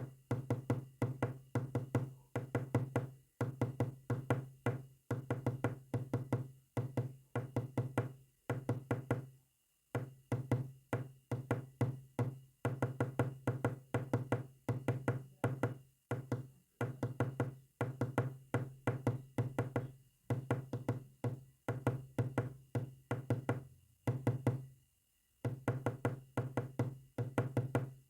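Morse code sent as a rapid string of short, low-pitched knocks, several a second. The knocks come in irregular groups, with brief gaps between them and longer pauses twice.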